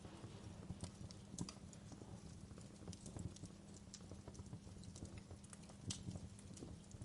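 Fireplace fire crackling softly, with irregular sharp pops and snaps over a low steady rumble of the flames.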